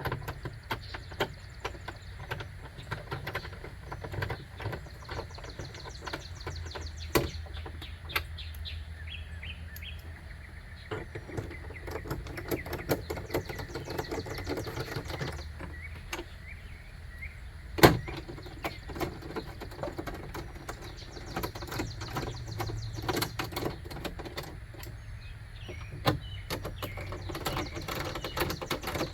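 Hand ratchet clicking in runs as the window regulator's mounting nuts are run down, with a few sharper metal knocks; birds chirp faintly in the background.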